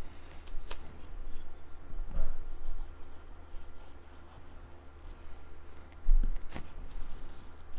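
Cardstock being handled and worked by hand: paper rustling and rubbing as it is folded and pressed down, with a couple of sharp taps.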